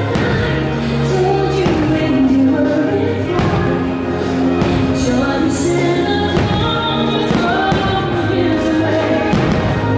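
Fireworks-show soundtrack music with singing, playing loud and steady.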